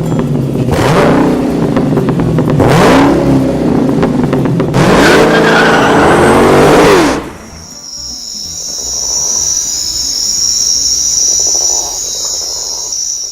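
An engine revving up and falling back three or four times, then a steady high-pitched whine for the last several seconds.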